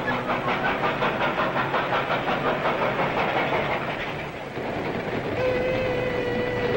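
Steam locomotive and passenger train passing at speed, with a fast, even rhythmic beat. About a second and a half before the end, harmonicas come in playing a long held chord.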